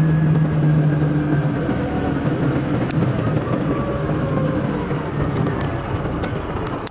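A utility cart running while it is driven: a steady low hum, with a faint tone that slowly slides in pitch.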